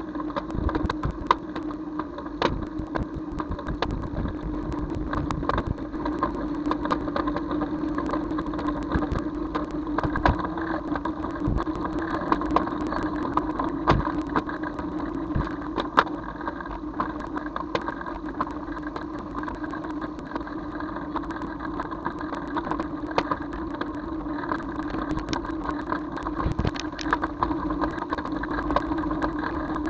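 Engine of the vehicle carrying the camera running at a fairly steady pitch through traffic, with many short clicks and knocks scattered throughout.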